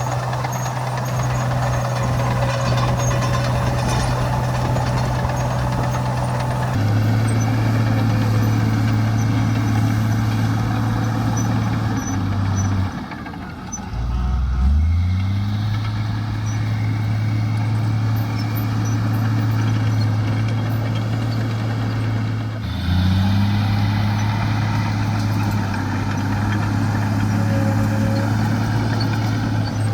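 Heavy diesel engine of earthmoving machinery running steadily. Its note shifts a few times, and just past the middle it dips briefly and then revs back up.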